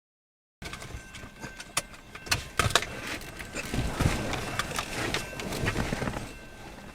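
Vehicle noise that cuts in abruptly under a second in: a low rumble with irregular clicks and knocks, loudest in the middle.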